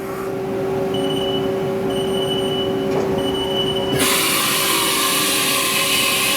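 Haas TM-1 CNC mill running with a steady machine hum. About four seconds in, a loud, steady hiss of compressed air starts, the air blast of the automatic tool changer releasing and swapping the tool in the spindle.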